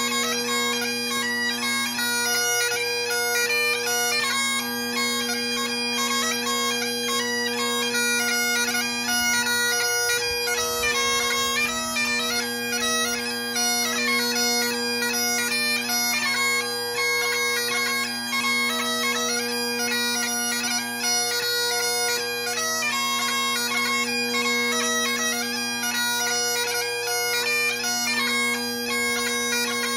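Great Highland bagpipe playing a hornpipe: the drones hold a steady tone under a quick chanter melody that runs on without a break.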